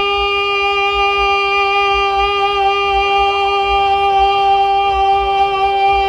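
Music: one long, unwavering wind-instrument note held throughout, over low, repeated drumbeats.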